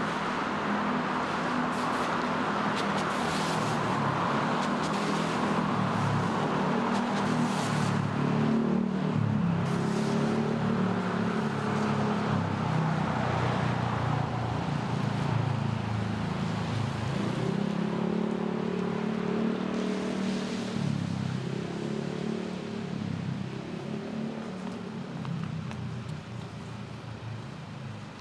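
Road traffic on wet streets: car engines running as vehicles pass, over a steady hiss of tyres on wet asphalt. It tails off near the end.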